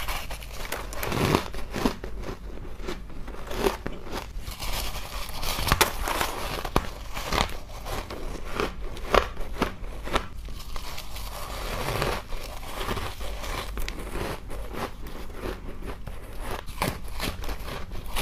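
Repeated bites into chunks of soft frost ice, crunching and crackling as the frost crumbles in the mouth.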